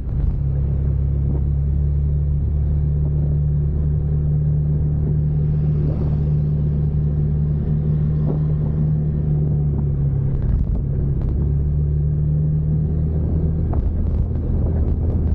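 Vehicle engine idling with a steady low hum; its note shifts about ten seconds in, and a few light clicks follow near the end.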